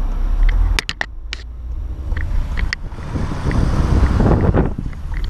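Cabin noise inside a Volkswagen Golf 1.4 TSI: a steady low rumble with scattered sharp clicks or ticks, which is the noise the owner is recording. A short cluster of louder knocks comes about a second in, and a swell of noise rises and falls between about three and four and a half seconds in.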